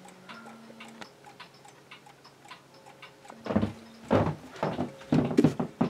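Mechanical clock ticking steadily. From about halfway through, a run of loud thumps and bumps drowns it out.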